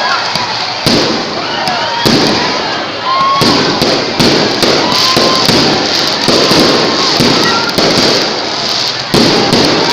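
Fireworks bursting overhead in a display: a string of loud bangs roughly one to two seconds apart, with crowd voices in between.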